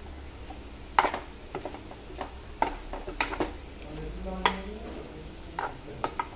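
Steel spoon stirring diced potatoes frying in oil in a steel pan: irregular sharp clinks and scrapes against the pan, about nine in all, over a sizzle of frying.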